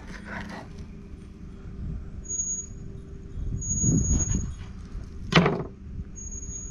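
Fillet knife working a fish fillet on a plastic fillet table, then one sharp knock about five seconds in as the knife is set down on the table. A thin, high, steady whine comes and goes three times behind it.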